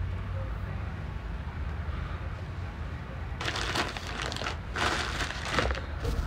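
A steady low hum on a phone's microphone, then from about halfway several bursts of rustling, crackling handling noise.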